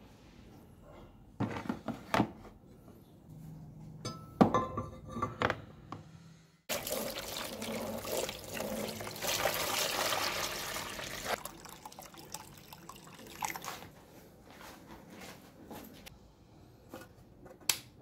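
Water poured into a plastic tub over a rusty cast-iron part, splashing for about four and a half seconds, as the electrolysis rust-removal bath is filled. Before it come a few sharp knocks of the part and wire being set in the plastic tub, and near the end a single sharp click of a power supply's rocker switch.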